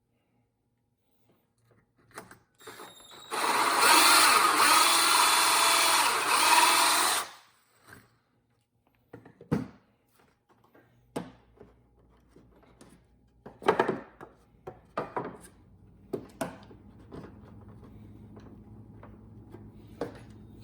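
Electric drill spinning a carbon steel hole saw in one run of about four seconds, starting about three seconds in and stopping abruptly, followed by scattered knocks and clicks of the tool being handled and a faint steady hum.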